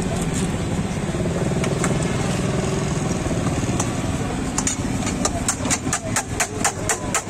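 A steady low rumble, and from about halfway, rapid metallic clicking at about five a second: eggs being beaten with a utensil in a steel bowl.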